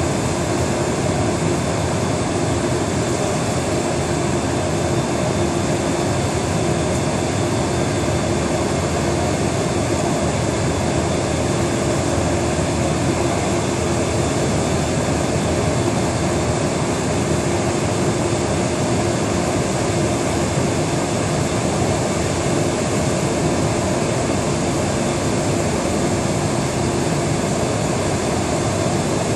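Steady, unbroken machine drone with a constant hum and a hiss from a pumpkin-seed drying bed's machinery, as the gantry seed turner runs along the bed stirring the drying seeds.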